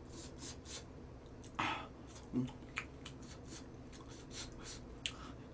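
Faint crackling and clicking of a boiled egg's shell being picked off by hand, with a short breath about one and a half seconds in.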